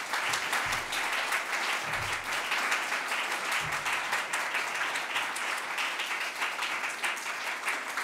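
Audience applauding: many hands clapping together in a dense, even patter.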